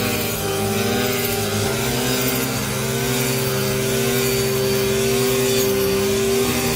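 Small 42.7cc two-stroke engine of a backpack rice harvester running steadily, its pitch wavering up and down about once a second.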